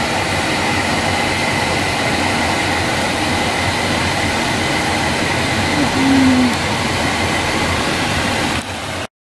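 Steady vehicle running noise with a faint, steady high whine over it; it cuts off abruptly near the end.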